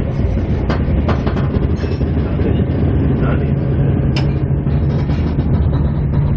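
Moving passenger train heard from inside the carriage: a steady low rumble of wheels on rail, with a few sharp clicks and rattles, the loudest about four seconds in.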